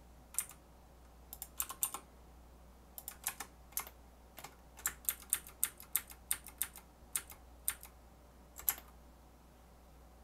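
Computer keyboard keys pressed in irregular clusters of clicks with short pauses between them, over a faint steady low hum.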